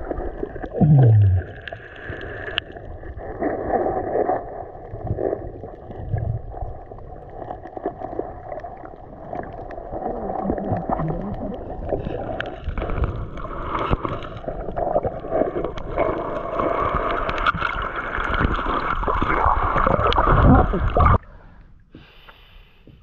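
Muffled underwater sound picked up through a submerged camera: water gurgling and sloshing, with scattered knocks and bumps and one loud low gurgle about a second in. The sound cuts off abruptly near the end, where the camera comes out of the water.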